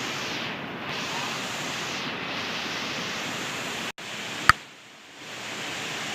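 Steady rush of flowing water in a small stream. About four seconds in the sound cuts out for an instant, a sharp click follows half a second later, and the water sound dips for about a second before returning.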